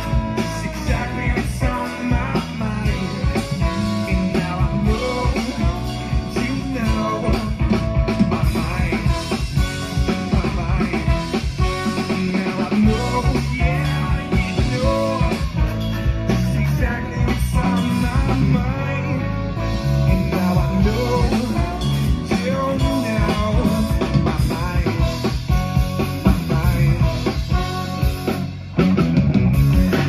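Live rock band playing: electric guitar, bass guitar and drum kit, with a trombone and a sung vocal. The music dips briefly near the end before coming back in loud.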